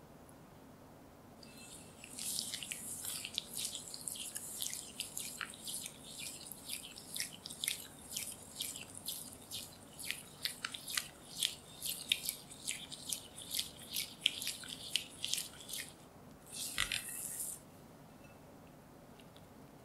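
Silicone spatula stirring peanut butter, sugar and vegetable oil together in a glass bowl: quick, irregular sticky squelches and scrapes for about fourteen seconds, then one last short scrape before it stops.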